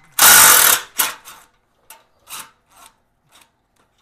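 Cordless power driver spinning the exhaust's rear mounting bolt for about half a second, then a few scattered light metallic clicks as the loosened bolt and wrench are handled.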